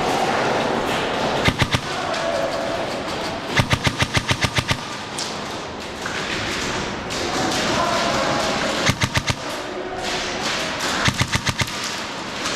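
Airsoft guns firing in quick bursts of sharp cracks, several shots a second: a couple of shots about a second and a half in, a longer string of about eight in the middle, and shorter strings later, over the steady hubbub of an indoor arena.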